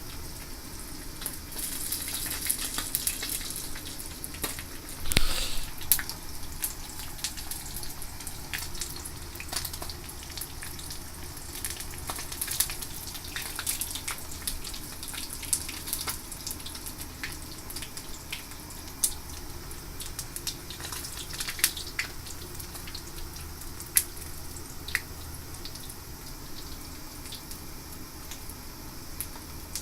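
Horse mackerel frying in a pan of oil: a steady sizzle with irregular crackles and pops throughout, and a louder knock about five seconds in.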